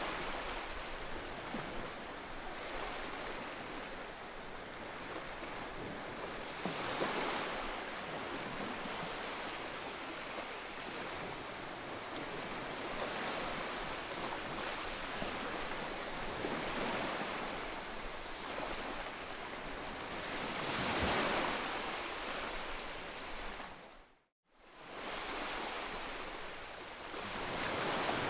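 Ocean surf: a steady hiss of waves washing in, swelling louder as waves break, most strongly about a quarter of the way in and again about three-quarters of the way in. Near the end the sound drops out completely for a moment, then fades back in.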